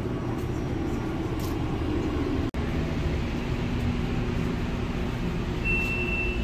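Steady low rumble and hum of a stopped light-rail train, heard from the platform and then inside the car, with a short high steady beep near the end.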